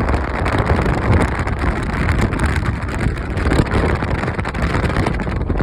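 Strong wind blowing across the microphone: a loud, continuous rush with a heavy deep rumble that swells and eases slightly with the gusts.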